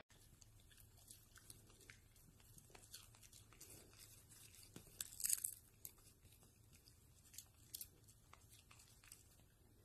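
Faint crunching and crackling of a dachshund chewing popcorn, made of many small irregular clicks, with a louder burst of crunching about five seconds in and a couple more a little before eight seconds.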